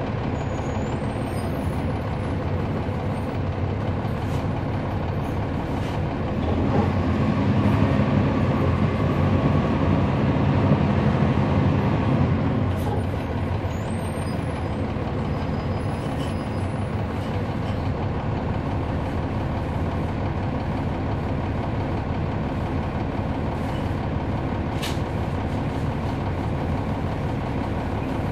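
Cabin sound of a NABI 40-SFW transit bus, its Cummins ISL9 diesel engine running steadily. The engine note swells louder for several seconds about a quarter of the way in, then settles back. A few brief high squeaks and one sharp click near the end.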